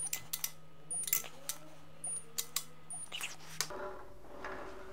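Irregular clicks and light metallic ticks of a socket wrench working the crankcase nuts on an air-cooled VW Type 1 engine case as they are brought up to a final torque of 22. A steady low hum comes in near the end.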